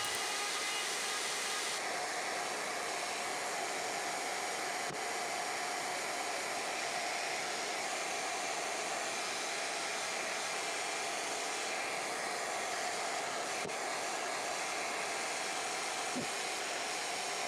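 Shaper Origin handheld CNC router running steadily while cutting box joints in plywood: an even motor whir and airy hiss with no changes in load.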